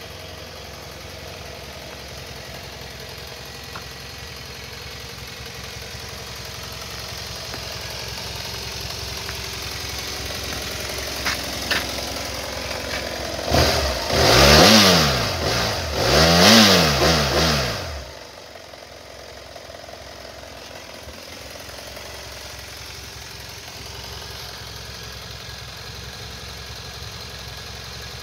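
A 2010 BMW F650GS's parallel-twin engine idles in neutral. About halfway through, the throttle is blipped twice in quick succession, each rev rising and falling over about two seconds, and then the engine settles back to a steady idle.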